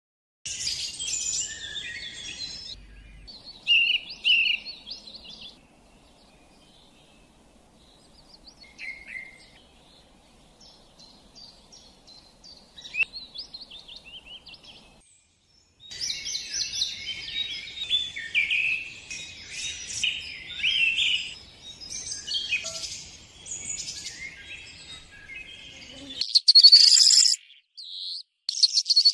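Birds chirping and singing in quick, high-pitched bursts. The calls thin out to a few faint notes through the middle, then become dense and continuous, with the loudest notes near the end.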